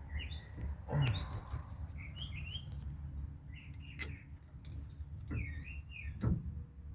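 Small birds chirping repeatedly, short high chirps again and again, with a few sharp metallic clicks and knocks from work on the brake caliper bolts.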